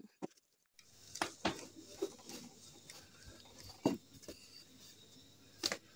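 Rolling pin rolling out a stack of dough circles on a board: a few soft, irregular knocks and bumps, the loudest about four seconds in.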